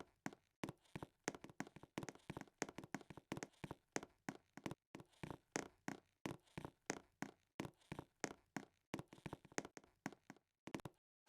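A fast, irregular run of light taps or clicks, about four to six a second, going on without a break.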